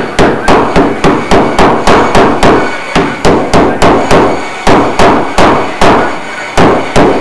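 Repeated hammer blows, about three a second, each sharp strike with a short ring after it, broken by two brief pauses.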